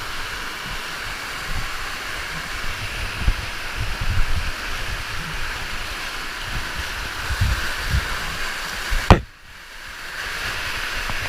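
Steady rush of a waterfall, with irregular low thumps and a sharp knock about nine seconds in, after which the sound dips for a moment and slowly returns.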